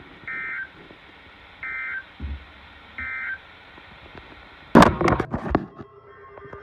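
Three short bursts of NOAA Weather Radio SAME data tones from a weather radio receiver, a buzzy two-tone warble under a second long each, about a second and a half apart: the end-of-message signal closing a flood warning. About five seconds in comes a sudden loud burst of noise with sharp clicks.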